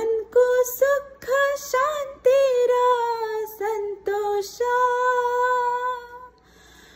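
A woman singing a Nepali song unaccompanied. The phrases open with a rising glide, move through several short notes, then hold long steady notes, and fall silent near the end.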